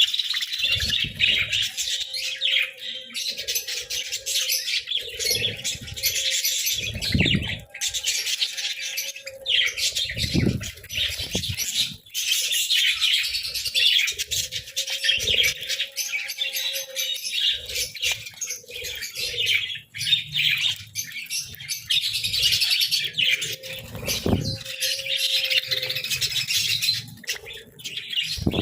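A flock of budgerigars (parakeets) chattering and warbling nonstop in dense, overlapping chirps, with occasional low thumps.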